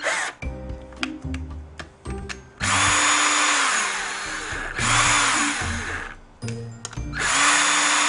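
Cordless drill/driver spinning off the rear-cover nuts of a Toyota alternator in three runs of about two seconds each, every run winding up quickly, holding a steady whine and winding down. Before the first run there are small clicks of the socket and tool being handled.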